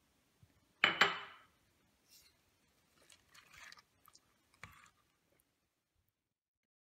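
A plastic spoon stirs thick, creamy soup with crumbled bacon in a stainless steel pot. There is one loud clack about a second in, then soft wet squelches and a sharp click.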